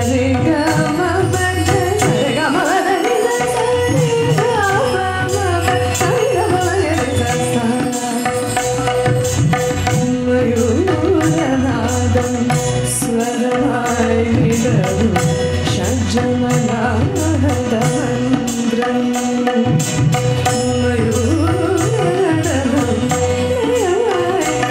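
A woman sings a Malayalam film song live through a microphone, with an orchestra of hand drums, drum kit and keyboards behind her. A steady held note runs beneath her melody.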